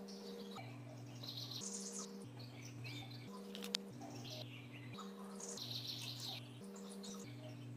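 Birds chirping over soft background music whose low held notes change about once a second. A single light click comes a little over three and a half seconds in.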